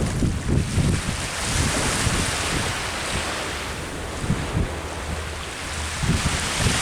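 Sea waves breaking and washing up the shore, the hiss swelling about two seconds in and again near the end, with wind buffeting the microphone in low rumbles.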